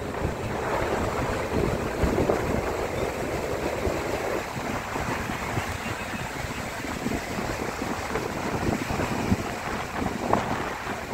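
Sea surf breaking and washing up the shore in a steady wash of noise, with wind buffeting the microphone.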